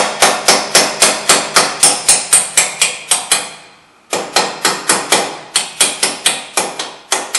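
Hammer tapping a bolt through the steering knuckle and upper ball joint stud: quick, even metal-on-metal strikes about four a second. The tapping stops for under a second about three seconds in, then resumes.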